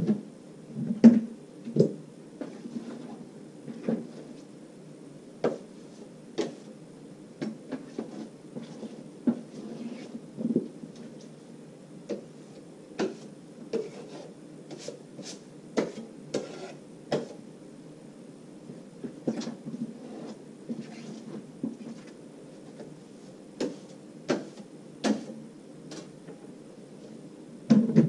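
Steel drywall knife scraping and knocking against a trowel, hawk and plastic bucket while joint compound is scooped and worked: irregular clicks and short scrapes, one or two a second, over a steady low hum.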